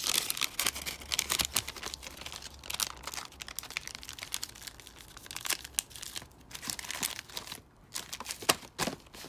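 Paper crinkling and rustling as a hockey card pack's wrapper and cards are handled, in irregular crackles that thin out briefly a couple of times and end with a few sharp clicks.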